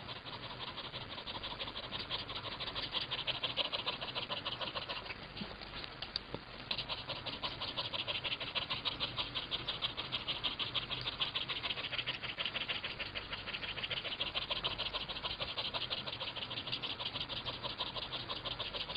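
A cat panting like a dog, mouth open and tongue out: rapid, even breaths in and out that pause briefly about six seconds in, then carry on.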